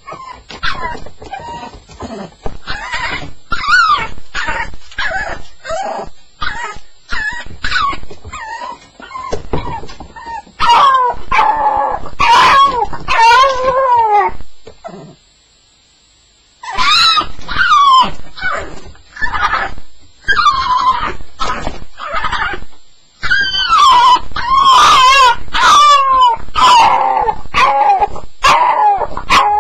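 Staffordshire bull terrier whining and crying on its first night, in a long run of repeated high, wavering calls. The calls break off for a second or two about halfway through, then start again.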